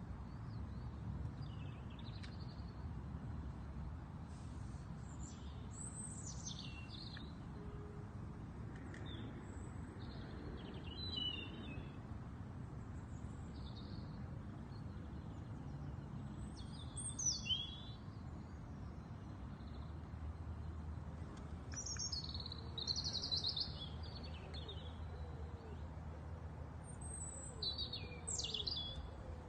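Garden songbirds calling and chirping in short high bursts and brief trills, on and off, over a steady low background rumble.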